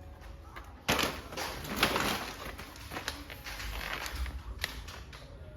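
Rustling and clattering of small objects being handled, starting suddenly about a second in with a burst of sharp clicks, then scattered clicks.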